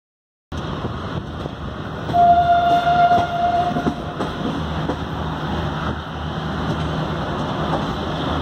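Train horn sounding one steady blast of about two seconds, over a steady low rumble of the railway, which begins about half a second in.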